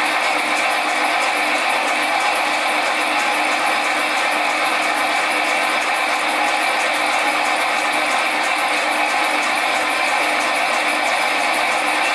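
Sieg SC4 mini lathe running under power feed on the cross slide, taking a light finishing facing cut on a model steam-engine cylinder casting. It makes a steady, even whine with a fast, regular ticking running through it.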